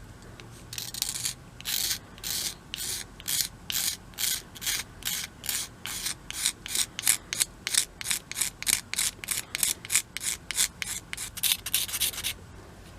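Hand scraping strokes, a blade scraped back and forth to take old glue off an axe handle. The strokes come about two a second at first, then quicken, and stop shortly before the end.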